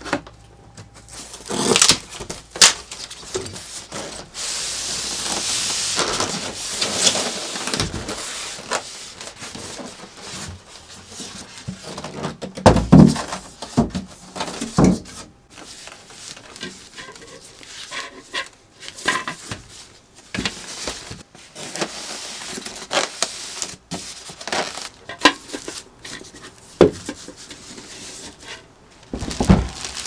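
Unboxing: packing tape cut and pulled off a cardboard box, then polystyrene foam packaging and plastic wrap handled, with rustling, scraping and several sharp knocks.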